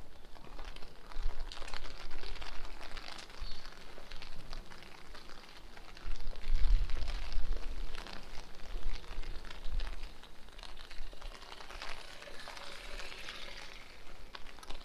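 Steady rain falling on the street, a dense hiss full of small drop ticks. Gusts of strong wind buffet the microphone with a low rumble about six seconds in and again near the end.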